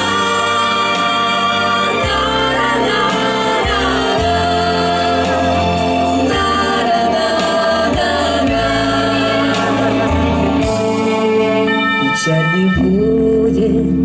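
A women's vocal group singing sustained notes in close harmony into microphones, over instrumental accompaniment with low bass notes, amplified through a stage sound system.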